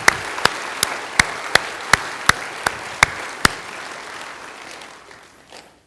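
Congregation applauding, with one set of sharp claps close by in a steady beat of almost three a second standing out over the rest; the applause dies away near the end.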